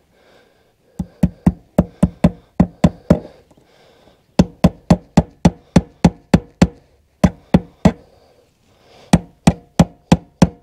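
Claw hammer striking a wire staple into a wooden post to fasten electrical cable. The strikes are sharp and come in quick runs of about four a second, with short pauses between runs.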